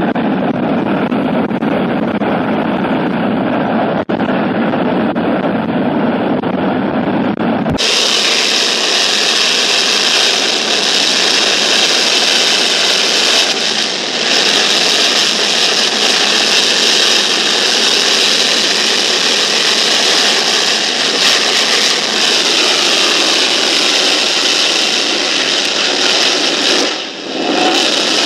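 General Electric J79-11B turbojet from an F-104 Starfighter, running in afterburner: a loud, steady rush of jet noise. About eight seconds in, the sound changes abruptly from a deeper, duller rumble to a brighter, hissier noise with less bass, and it dips briefly near the end.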